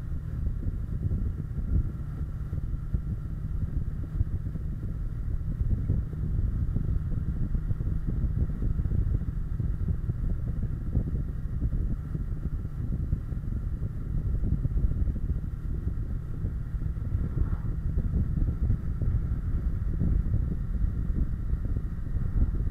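Kawasaki Versys 650 parallel-twin running at steady road speed, heard from a bike-mounted camera with heavy wind buffeting on the microphone over the engine.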